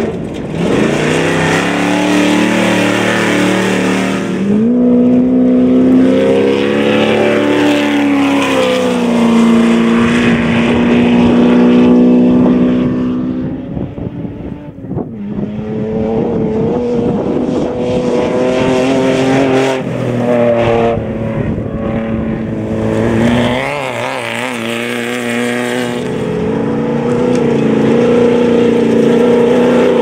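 Desert race trucks' engines running hard as they pass one after another, pitch rising and falling with the throttle. There is a brief dip about halfway through before the next truck comes through.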